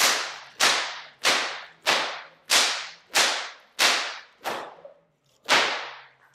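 A whip cracking in a fast helicopter pattern, a multi-crack routine with no spins between cracks: nine sharp cracks in quick succession, about one every two-thirds of a second, with a slightly longer gap before the last. Each crack trails off in a short echo.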